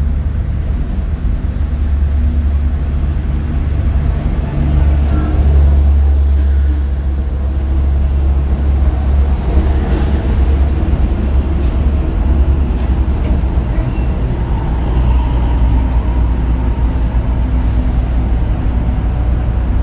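Philippine National Railways diesel train running close by: a loud, steady deep engine rumble, with two brief high hisses near the end.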